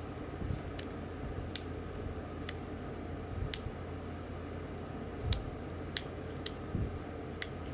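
Irregular small, sharp clicks and taps of fishing reel parts being handled and set down, about ten of them, over a steady low hum.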